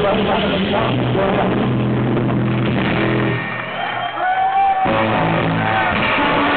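Live surf rock band playing loudly, led by a Fender Stratocaster electric guitar. About three and a half seconds in, the bass and drums drop out for about a second and a half, leaving a few gliding high notes. Then the full band comes back in.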